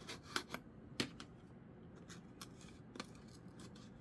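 Toy packaging being handled while it is opened: a few short, sharp clicks and light taps, most of them in the first second, with faint rustling between.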